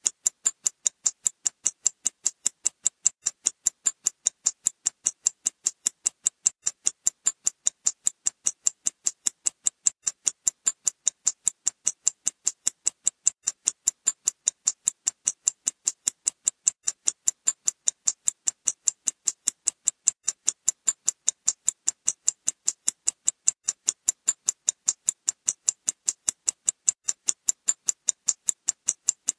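Clock ticking as its second hand advances: sharp, even, high-pitched ticks at a steady rhythm of several a second.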